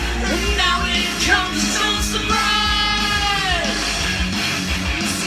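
Rock song with singing and guitar; about halfway through, a held sung note slides down.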